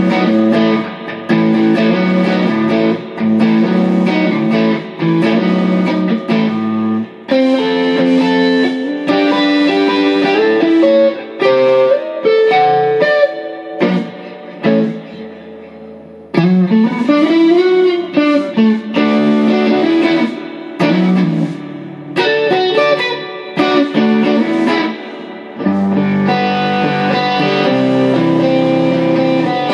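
A 2020 Gibson Custom Shop 1968 reissue Les Paul Custom electric guitar played through an amplifier: strummed chords and single-note phrases, with short pauses between them and a note bent up and back down about halfway through.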